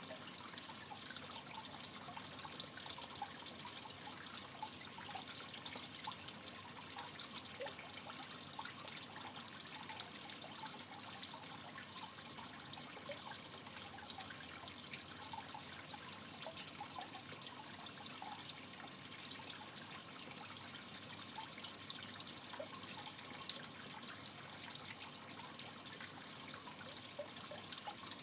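Aquarium water trickling steadily, as from a filter return, with a thin high-pitched whine that comes and goes a few times.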